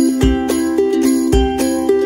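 Background music: a melody of changing notes over a steady beat, with a deep thump about once a second.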